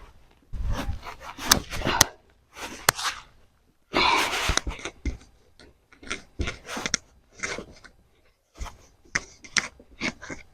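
Loose soil rustling and scraping in a container as sweet potatoes are dug out, in irregular bursts with a few sharp clicks.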